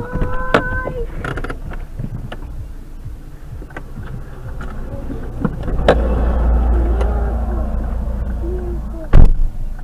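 Cabin sound of a stopped car just after a crash on the road ahead: a held tone of about a second at the start, scattered knocks, a low rumble building from about six seconds, and a sharp loud thump just after nine seconds.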